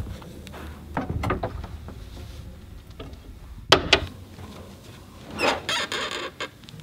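High-heeled footsteps clicking on a hard floor. About halfway through comes a sharp knock, and near the end a rasping creak as the grand piano is opened, before any music starts.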